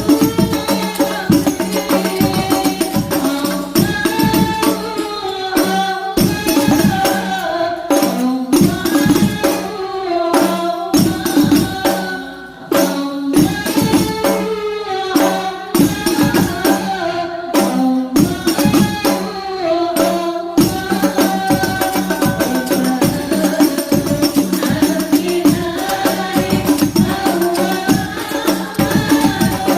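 Habsyi group singing Islamic devotional songs in unison, accompanied by rebana frame drums beating a brisk, steady rhythm.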